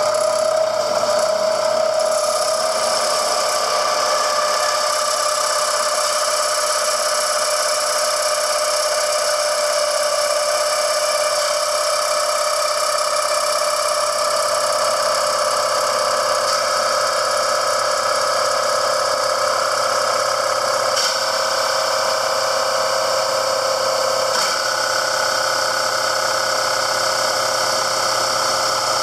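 Power drill running steadily as it cuts slowly through thin plastic, more melting than drilling, with a high screech like fingernails on a chalkboard. Its pitch sinks gradually.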